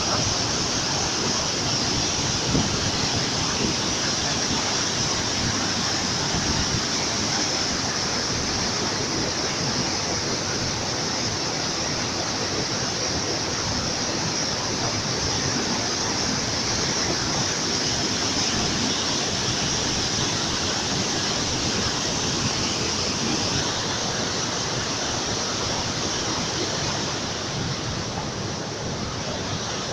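Waterfall: water falling with a steady, unbroken noise.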